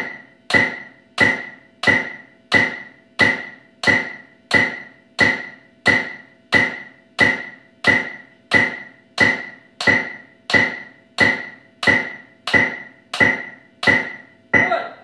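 Metronome clicking steadily at 90 beats per minute, each click a sharp tick with a short ringing tone, with drumsticks struck on a practice pad in time with the clicks.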